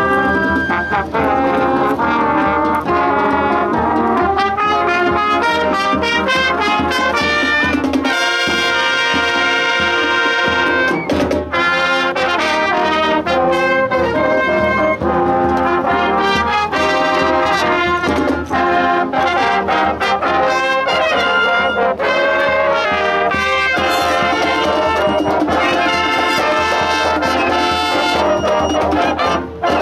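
Junior high school marching band playing live: trumpets, trombones and sousaphones with saxophones and clarinets, in full chords and held notes. The music cuts off near the end.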